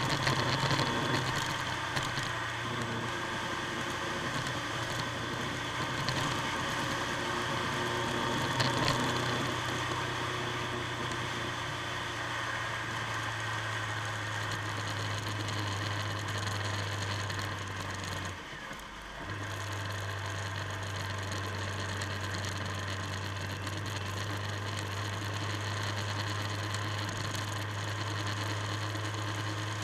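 Motorcycle engine running steadily while riding at road speed, heard from the bike itself, with a steady low hum and road noise. The engine note drops out briefly once, about two-thirds of the way through.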